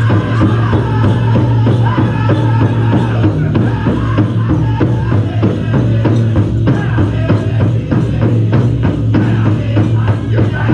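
Powwow drum group singing a chicken dance song in high voices over steady, even beats on a large drum, the beats standing out more clearly in the second half.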